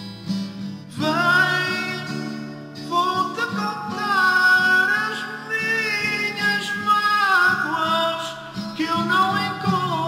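A man singing to his own strummed cutaway acoustic guitar. He holds long notes in the middle of the phrase.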